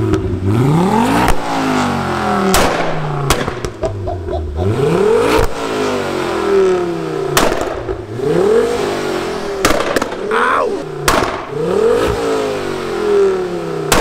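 Mk2 Ford Focus RS's turbocharged 2.5-litre five-cylinder engine blipped hard about five times while standing still. Each rev rises and falls quickly, with sharp exhaust bangs and pops on the overrun between the revs.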